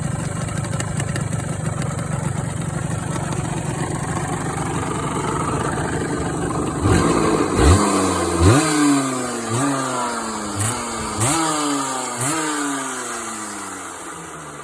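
Honda MVX250F's two-stroke V3 engine idling steadily, then revved with several quick throttle blips from about seven seconds in, each rising and falling back, before settling. The owner hears an abnormal noise from the crank in this engine.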